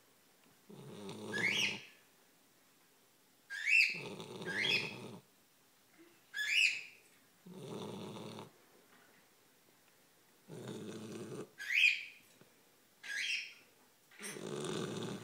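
Great Pyrenees dog snoring in its sleep: about seven snoring breaths spaced a second or two apart, several ending in a short high whistle that rises in pitch.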